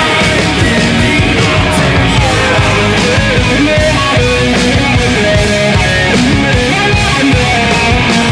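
Loud hard-rock music with a steady, dense sound throughout.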